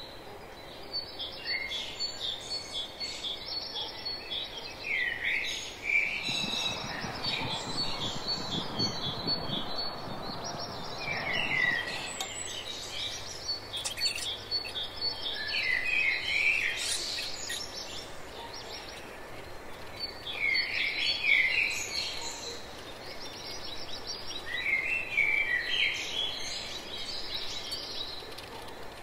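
Birds chirping in short clusters every few seconds over a rapid, high trill of notes. A low rushing noise swells and fades about a third of the way through.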